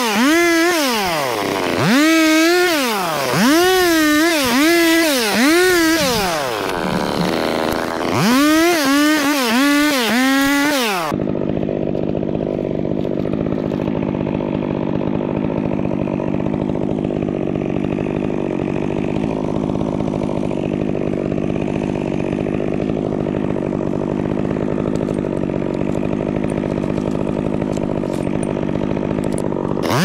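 Chainsaw cutting, its engine revving up and falling back again and again, with a brief lower lull partway. About a third of the way in the sound switches abruptly to a steady engine drone at an unchanging pitch.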